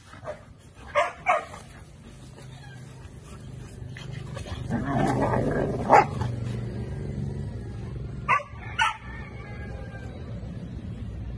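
Dogs yipping and barking in short sharp calls: a pair about a second in, the loudest just before the middle of the clip, and another pair a little later, with a rougher, noisier stretch leading up to the loudest yip.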